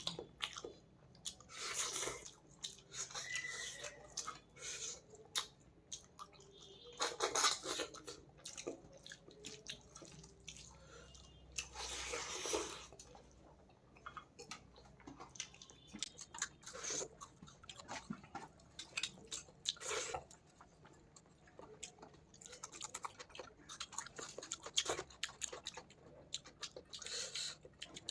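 Close-up wet chewing and mouth sounds of someone eating fish and rice, with irregular clicks and a few louder smacking bursts.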